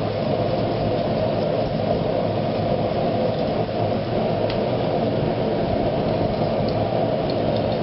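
Steady rushing roar of a blacksmith's forge running, with a few faint light scrapes from a brass wire brush scrubbing the twisted iron drawer pull on the anvil.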